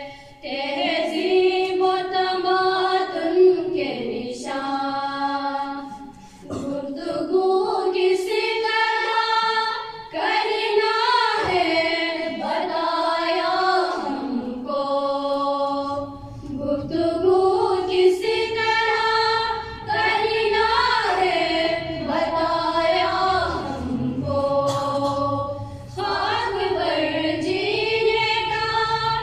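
A group of schoolgirls singing a nagma, an Urdu song in honour of teachers, together in unison. The song comes in sung phrases of a few seconds, with short breaks between them.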